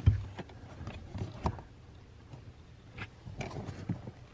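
A few light, scattered clicks and knocks of hands working a heater core hose clamp and hose loose at the heater core under the dashboard.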